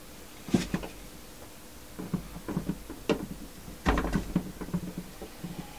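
A series of light wooden knocks and clunks from a small oak mini cask being handled and its bung pressed back in, with the strongest thump about four seconds in.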